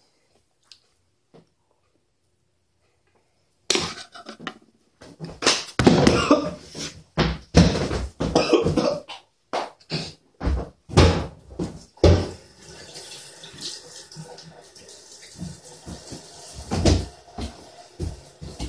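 A man coughing and spluttering hard after taking a spoonful of dry ground cinnamon. The coughing starts about four seconds in, after a silent pause. From about twelve seconds in a water tap runs steadily under more coughs.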